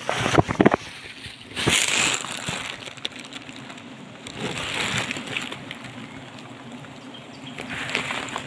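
Leaves and twigs rustling in several bursts against the microphone, loudest near the start, over a steady low hum from a giant honeybee (Apis dorsata) colony clustered on its comb.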